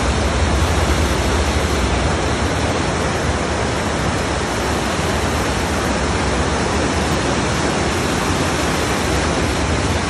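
A river rushing over boulders in a small cascade of white water: a loud, steady rush with no breaks.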